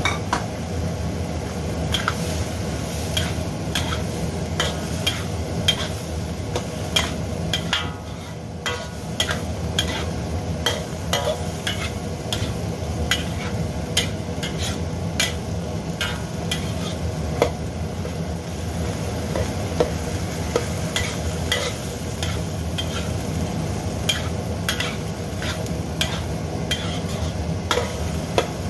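Metal spatula scraping and clinking against a wok while stir-frying minced meat with chopped tomatoes and onions, in quick irregular strokes, with the food sizzling. A steady low rumble runs underneath.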